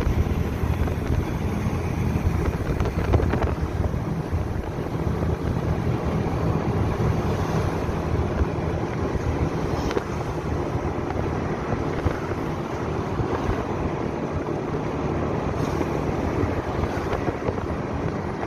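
A car driving at speed, heard from inside the cabin: a steady rush of road and wind noise with a low rumble.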